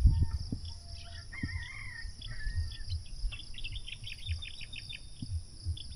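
Birds chirping and calling over a steady high insect drone. A warbling call comes about a second and a half in, then a run of quick chirps through the middle, with scattered low thumps underneath.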